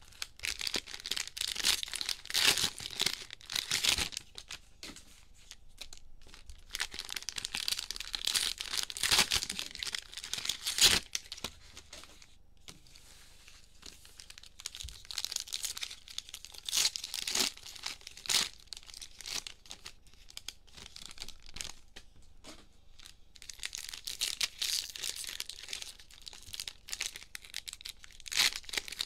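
Plastic cello-pack wrappers of 2021 Mosaic football trading cards being torn open and crinkled by hand. The crinkling comes in four spells with short quieter gaps between them.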